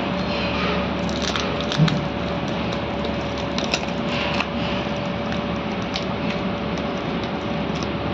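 Packing tape being peeled and brown paper wrapping crinkled on a small parcel, in scattered crackles and rips, with a thump about two seconds in. A steady hum runs underneath.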